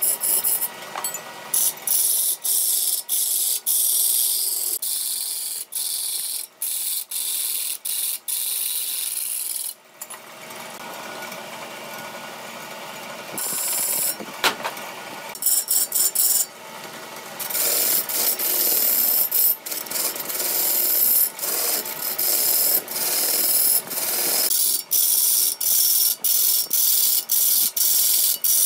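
Wood lathe turning: a long hand-held tool cutting into a large spinning wooden blank, a rasping hiss of shavings coming off, with many brief breaks throughout and a quieter spell about ten seconds in.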